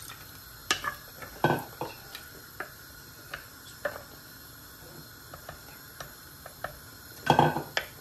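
Spoon stirring and scraping minced lamb and potatoes in a cooking pot over a steady low sizzle, with scattered clinks against the pot. A louder cluster of knocks comes near the end.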